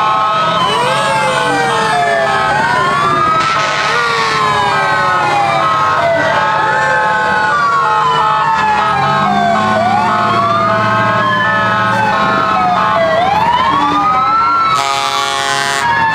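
Several fire-truck sirens wailing at once, their pitches sweeping up and down and overlapping, over the low rumble of the passing trucks' engines. A loud blast cuts in near the end.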